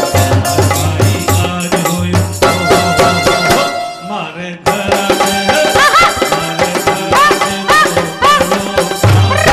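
Instrumental interlude of a live Rajasthani folk song: dholak drumming with a keyboard. The music drops out briefly about four seconds in, then comes back with a melody of sliding, bending notes over the beat.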